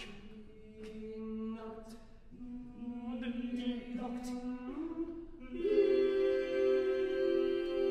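Eight-voice a cappella vocal ensemble singing held tones in several pitches, with short clicks and hissed consonants between them. About five and a half seconds in, the voices swell into a louder sustained chord.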